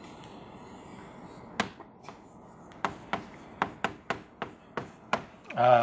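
Chalk writing on a blackboard: about a dozen sharp, irregular taps and clicks as a short label is written, starting about a second and a half in.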